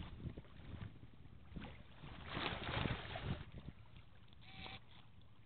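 Wind gusting over the microphone in uneven buffets, strongest about two to three seconds in, with a low rumble beneath.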